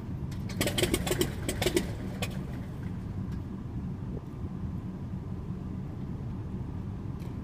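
Beechcraft S35 Bonanza's six-cylinder Continental IO-520 engine and propeller running steadily at low power while the plane taxis. A cluster of sharp clicks and knocks comes about a second in.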